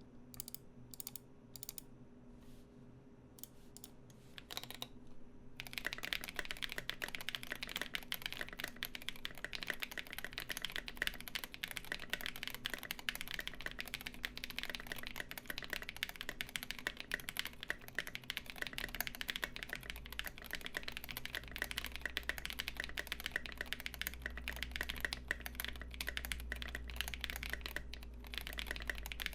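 Typing on a Glorious GMMK Pro mechanical keyboard with lubed SP-Star linear switches, an aluminium plate and SA profile keycaps. A few separate keystrokes, then fast continuous typing from about six seconds in.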